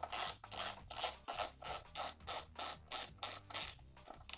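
Socket ratchet working in quick short back-and-forth swings, a raspy burst of pawl clicking on each swing, about three a second, as a 10 mm bolt is undone.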